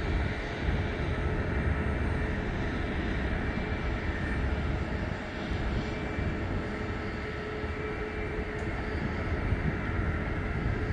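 Rolls-Royce Trent 700 turbofans of an Airbus A330-200 at takeoff power as the jet climbs out: a steady, deep rumble with faint steady whining tones over it.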